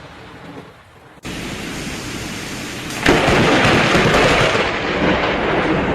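Rain hissing, then a sharp crack of a close lightning strike about three seconds in, followed by loud rumbling thunder.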